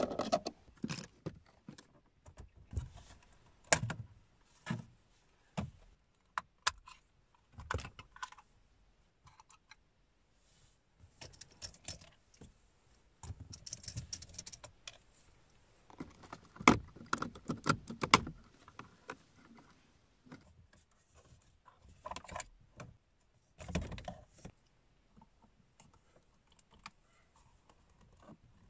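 Plastic center console trim and its fasteners on a Toyota RAV4 being worked loose with hand tools: irregular clicks, taps and short rattles, with a few sharper knocks and brief scrapes.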